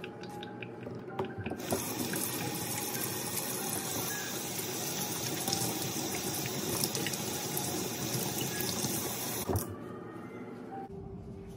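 Kitchen tap running into a stainless steel sink while hands are rinsed under the stream. It starts about two seconds in and stops with a knock about two seconds before the end. Before it comes the light crinkle of disposable plastic gloves being pulled off.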